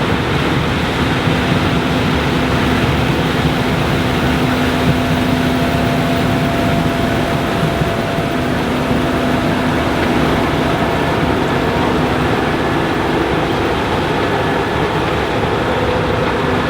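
Case IH 7130 Axial-Flow combine running steadily while harvesting corn: a dense, even mechanical noise from the engine and threshing machinery, with a faint steady hum under it.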